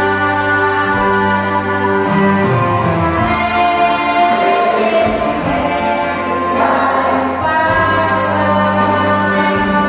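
Women's gospel vocal group singing together, holding long notes, with one voice through a microphone.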